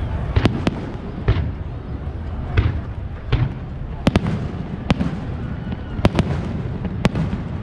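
Aerial fireworks shells bursting: about a dozen sharp bangs at irregular intervals, some in quick pairs, over a steady low rumble.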